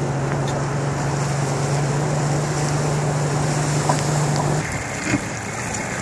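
MasterCraft ski boat's inboard engine running slowly, with water washing around the hull and wind on the microphone. A steady low hum runs under it and drops out about three-quarters of the way through.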